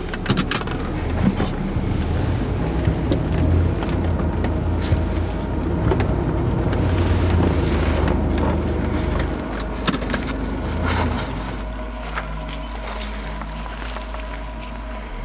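Road and engine noise inside a moving car's cabin: a steady low rumble with a wash of wind and tyre noise. The rumble drops away about eleven seconds in.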